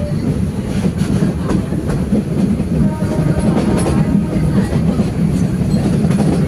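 Metre-gauge heritage train running, heard from aboard a coach: a steady low rumble of wheels on rails with occasional faint clicks over the rail joints.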